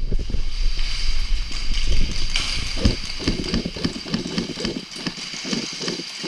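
Irregular knocks and thuds, like hurried footsteps and gear shifting, over a faint steady high whine.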